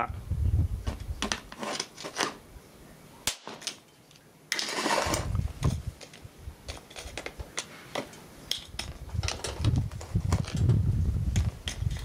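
Irregular sharp clicks and small snaps as the probe from a charged capacitor bank is jabbed at the pins of a CRT deflection coil, with a hissing crackle lasting about a second around four and a half seconds in. The coil has no continuity left, so the bank never makes a proper discharge bang.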